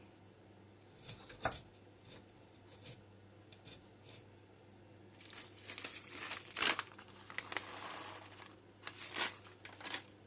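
Irregular crinkling and rustling of something handled, like plastic or paper being crumpled, with a busier stretch in the second half.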